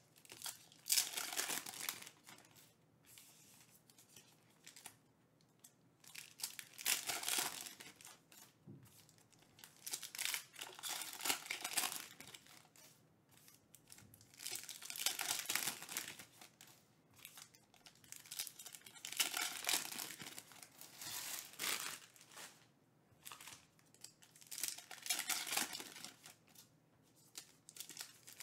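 Foil trading-card pack wrappers being torn open and crinkled by hand, in repeated bursts every few seconds with quieter pauses between.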